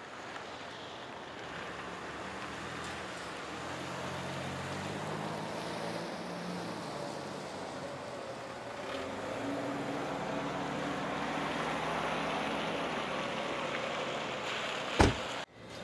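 A car's engine running low as it pulls into a parking space, over a steady outdoor wash of background noise. A single sharp knock about fifteen seconds in, such as a car door being shut.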